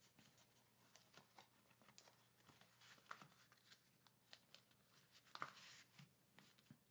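Near silence, with faint scattered ticks and rustles of card stock being handled and pressed flat by hand.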